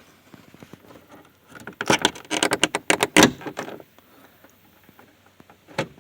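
Quick plastic clicks and rattles for about two seconds as a door trim piece is handled and pressed back onto the pickup truck's door panel, with one more click near the end.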